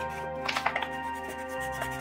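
Background music with steady held tones; about half a second in, a quick cluster of crackles as a strip of paper is handled and folded.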